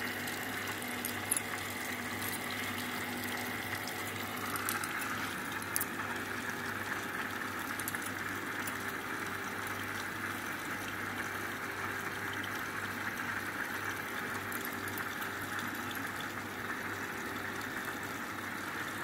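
Vacuum filtration of acetone leaf extract through a Buchner funnel: a steady watery rushing hiss of the suction drawing filtrate into the flask. It grows a little stronger about four to five seconds in, and there are a couple of small clicks early on.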